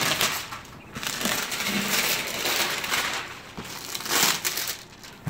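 Clear plastic shrink wrap crinkling and crackling as it is pulled and torn off a cardboard box, in uneven handfuls.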